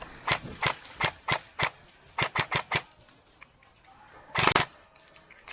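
Airsoft gun firing single shots: five sharp cracks about a third of a second apart, then a quick string of five. A louder noise lasting about a third of a second follows near the end.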